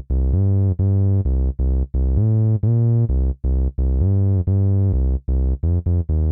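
Yamaha PSR-SX900 arranger keyboard playing one of its bass voices, recorded straight from the keyboard: a solo bass line of separate low notes, some held longer, with a quick run of short notes near the end.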